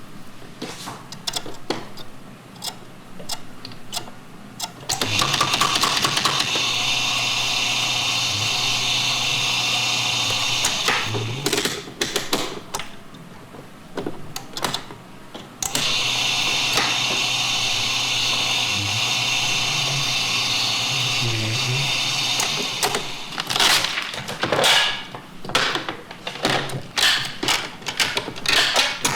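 A recorded mechanical sound effect: irregular clicking and knocking, broken by two steady whirring runs of about six seconds each, like a small machine started and stopped twice.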